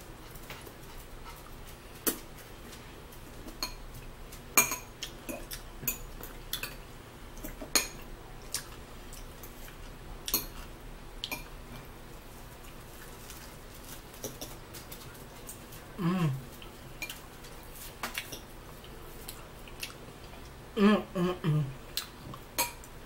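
Cutlery clinking against plates as people eat: scattered single sharp clinks, a second or a few seconds apart.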